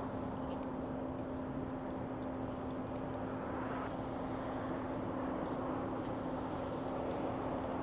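Steady mechanical hum with one constant low tone, with a few faint clicks scattered through it.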